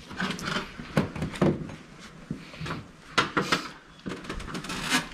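Hands working the metal cover off a hybrid car's IMA battery compartment: a series of clicks and knocks with short scraping sounds of metal panels and fasteners being handled.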